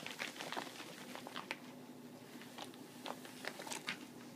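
Ferrets scrambling in and around a clear corrugated plastic tube: faint, irregular light clicks and rustles of claws and bodies against the plastic and the rug.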